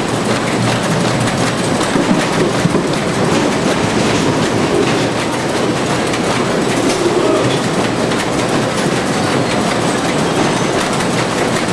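Optical tomato sorter-sizer running: a steady, dense mechanical clatter from its conveyor and cup lanes, with tomatoes carried under the spinning brush.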